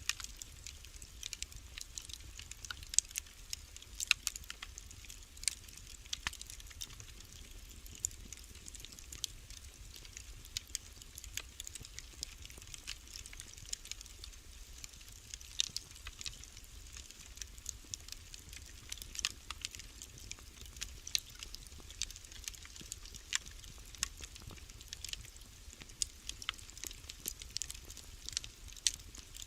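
Wood fire crackling: irregular sharp pops and snaps, several a second, over a faint low rumble.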